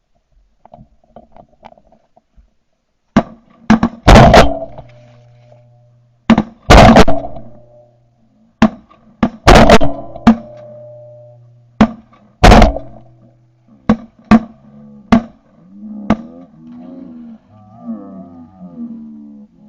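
Shotgun volley at a flock of ducks: about a dozen shots over some fifteen seconds, four of them much louder than the rest, each followed by a short fading tail.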